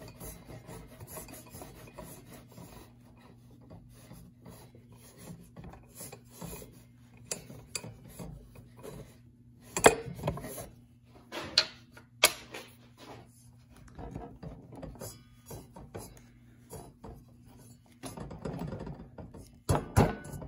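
Metal rubbing and light clicking as the arbor nut of a Ryobi table saw is spun off the threaded arbor by hand, with the stopped blade and washer rattling slightly. A few sharper metal clicks come about halfway through and again near the end, over a faint steady hum.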